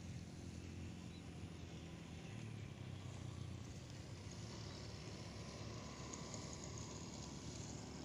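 Steady low hum of a distant engine over faint outdoor background noise, with a thin high sound briefly in the second half.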